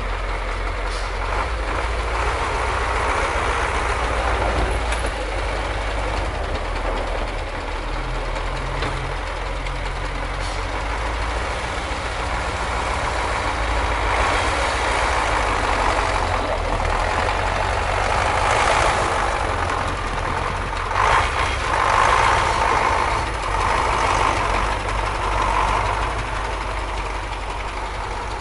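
Garbage truck running with its engine idling and its machinery working, a steady low rumble under mechanical clatter. The noise swells in louder surges about two-thirds of the way through.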